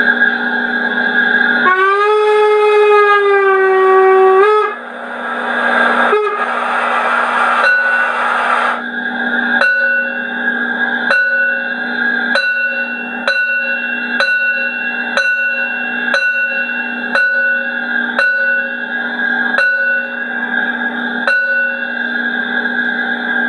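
Sound decoder of a Piko BR 50 garden-railway model steam locomotive over a steady drone: a steam whistle blows for about three seconds, a hiss follows, then slow, evenly spaced chuffs, about one a second, as the locomotive starts off.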